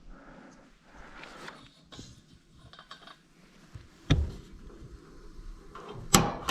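Faint handling and rustling, with a dull knock about four seconds in and a sharp click near the end.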